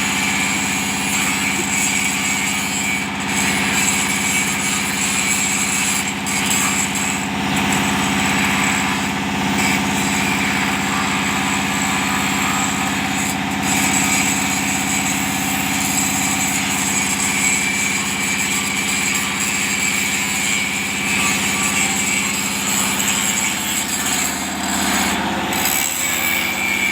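An engine running steadily at idle, unbroken throughout.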